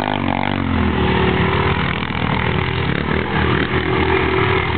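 Aeon Cobra 350 quad bike engines running hard in the dirt. The revs drop in the first second, then keep rising and falling as the quads turn and spin.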